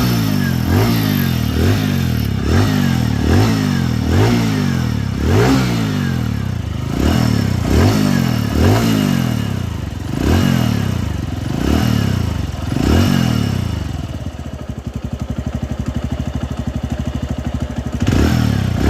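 TVS Radeon BS6 motorcycle's single-cylinder engine being revved in short throttle blips, about one a second, then settling to idle for a few seconds before another rev near the end. The owner hears an abnormal "khan khan" clanking from the engine and takes it for a fault.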